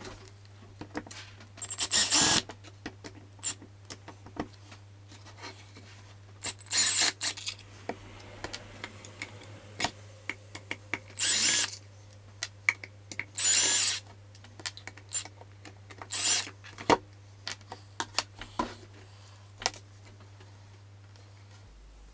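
A small handheld power tool runs in about five short bursts of up to a second each, with a thin high whine. Between the bursts come sharp clicks and knocks of parts being handled.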